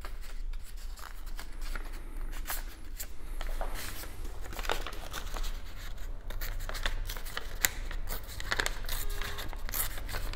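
Scissors cutting paper, irregular crisp snips and crinkles as excess paper is trimmed off.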